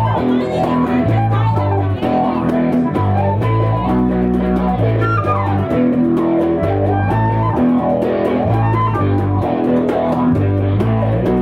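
Live band playing an instrumental passage: electric guitar and bass guitar over a repeating bass riff, with a flute melody and percussion.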